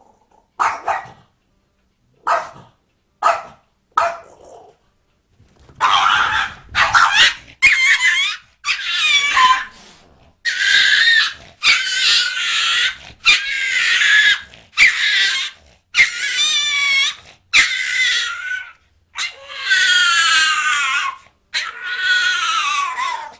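Small dog barking and yelping: a few short barks in the first four seconds, then a long run of longer, high-pitched yelps, some wavering or falling in pitch, with short pauses between them.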